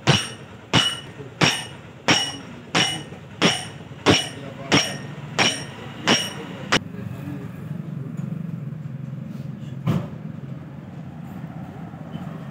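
Hammer blows on a steel drift rod driven into a Swaraj 855 tractor's hydraulic lift cylinder: about ten ringing metal strikes, roughly one and a half a second, stopping about seven seconds in. After that a steady low hum, with one more single knock near the end.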